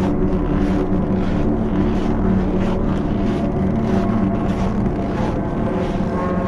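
Dark ambient music: a low, sustained droning chord of several held tones, with soft swishing pulses at an even pace of about one and a half a second.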